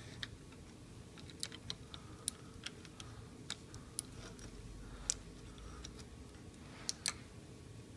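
Scattered light clicks and ticks from a hand tool being worked on the piston bolt of an air-suspension compressor as the bolt is tightened, about nine sharp clicks at uneven intervals.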